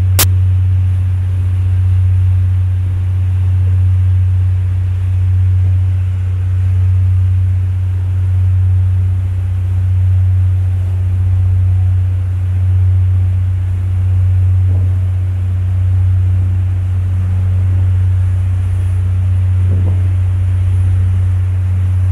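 Fishing boat's engine running steadily underway: a deep low drone that swells and eases about every two seconds. A single sharp click sounds at the very start.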